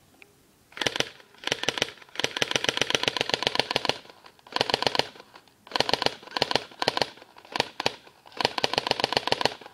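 Electric airsoft M16 (AEG) firing with no magazine fitted, its motor and gearbox cycling in rapid full-auto bursts: about eight bursts of quick, even clicks, the longest about two seconds.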